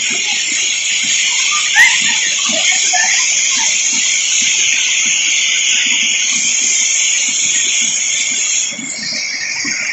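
Waterfall water pouring and splashing onto rocks and bathers in a steady rush, with a few faint children's squeals early on and one brief sharp click about two seconds in.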